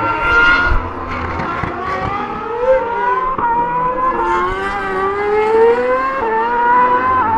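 A 2013 Formula 1 car's 2.4-litre V8 at high revs, accelerating out on the circuit: its high-pitched note climbs steadily and drops sharply at each upshift, three times.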